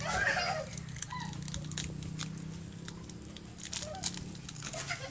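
Children playing rough: a child's shout, then scattered slaps and scuffs of bare feet on concrete with a few short cries, over a steady low hum.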